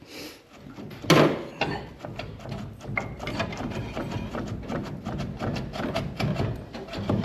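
Metal clanking and scraping as the cylinder head of a 1927 Dodge Brothers four-cylinder engine is worked loose and lifted on its studs. There is a sharp knock about a second in, then a steady run of small knocks and rattles.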